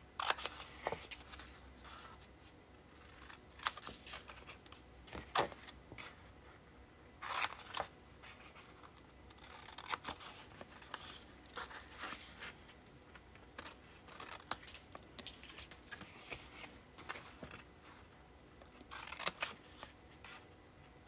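Small pointed scissors snipping through patterned designer paper in short, irregular cuts, trimming away the marked corner sections of a scored sheet.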